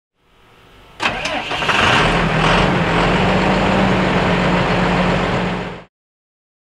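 Cummins 5.9-litre inline-six diesel of a 1998 Ford F800 truck starting about a second in, then running steadily at idle. The sound cuts off suddenly near the end.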